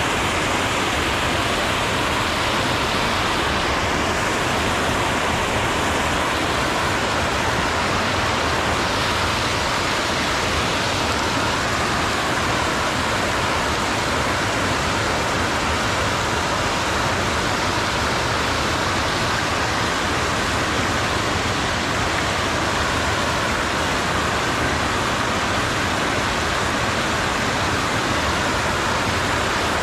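Water rushing steadily over a low river weir, a constant even hiss.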